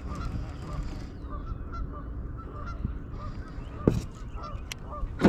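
Geese honking over and over, short hooked calls repeating about every half second, over a steady low rumble. A single sharp knock comes about four seconds in.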